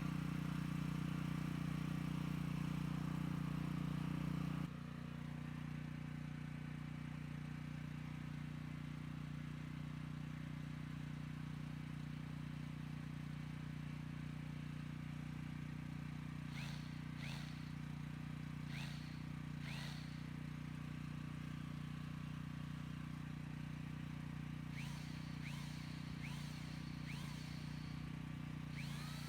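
Bosch GBH2/20S hammer drill motor running steadily with a constant hum. It drops to a lower level about five seconds in and runs on evenly.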